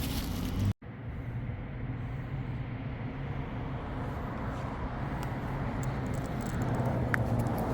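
Steady outdoor rumble of road traffic, broken by a brief dead dropout just under a second in, where one clip cuts to the next.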